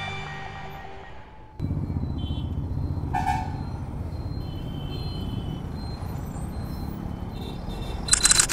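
Background music fades out, then road traffic takes over: vehicle engines running in heavy traffic, with horns tooting a couple of seconds in and a short loud blast near the end.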